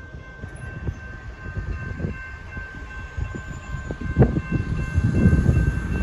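Railroad crossing bell ringing steadily while the crossing gates lift, over a low rumble. Two sharp knocks, about four seconds in and at the very end, stand out as the loudest moments.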